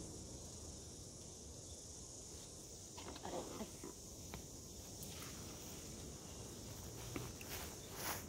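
Steady high-pitched insect noise, crickets or similar, with faint scattered rustling and snapping of leaves and twigs as plums are picked from the tree.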